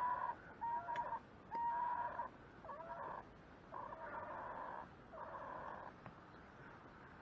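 Chickens calling: a run of six or seven drawn-out calls, the first few loudest with a held pitch, fading near the end.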